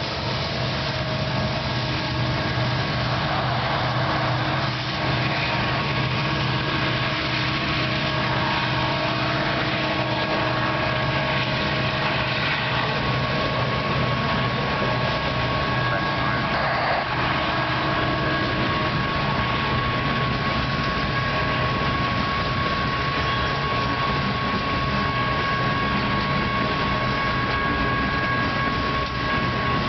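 BNSF coal train rolling past a level crossing in a steady rumble, its diesel locomotives going by in the opening seconds and then its hopper cars rolling over the rails. A steady high-pitched tone rings along with it, growing stronger in the second half.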